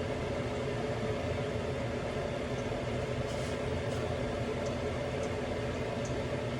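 Breaded chicken cutlets frying in hot oil, a steady sizzle with a few faint ticks, over a steady low hum.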